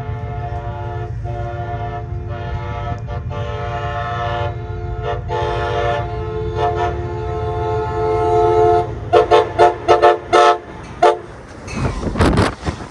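Amtrak Pacific Surfiner locomotive's air horn sounding a chord of several notes, held in long blasts with short breaks. It then gives a run of about seven quick toots, over the low rumble of the train. A burst of rushing noise comes near the end.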